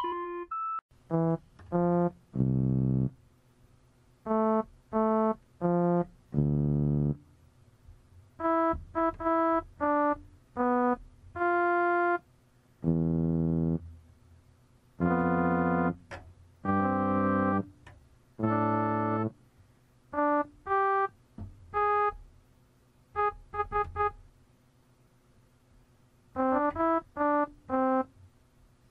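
Sparse keyboard music: single notes and short held chords played one at a time, with brief pauses between them.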